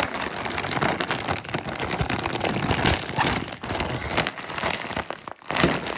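Clear plastic bank bag crinkling and rustling as hands grip it and pull it open, a dense run of crackles.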